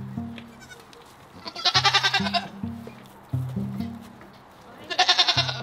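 A goat bleats twice, a quavering call about two seconds in and another near the end, over background music with a low bass line moving between a few notes.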